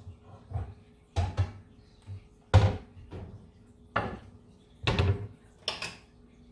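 Kitchen cupboards and cookware being handled: a string of sharp knocks and bangs, the loudest about two and a half seconds in.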